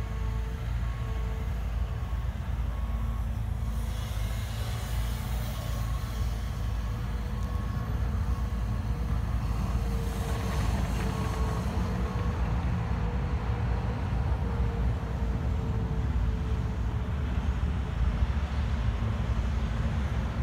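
Heavy diesel engines of a tracked excavator and a dump truck running during earthmoving, a steady low rumble. Through the first half a faint beep repeats about once a second.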